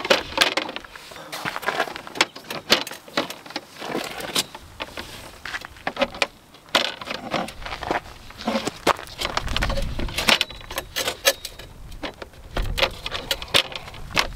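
Clattering and clicking of a folding camp table being put together: hinged tabletop panels unfolded and knocked into place on its metal frame, in many irregular sharp clicks and knocks.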